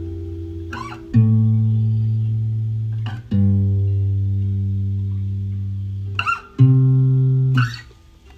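Guitar playing slow chords, each left to ring and fade; a new chord is struck about a second in, again about three and a half seconds in and near six and a half seconds, and the last is damped shortly before the end.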